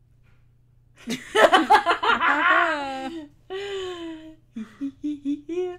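Women's laughter: a loud burst about a second in, a drawn-out falling note, then a run of short giggles.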